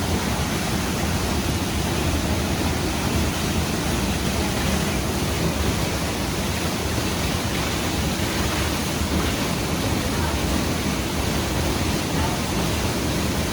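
Waterfall rushing steadily: an even, unbroken wash of falling-water noise.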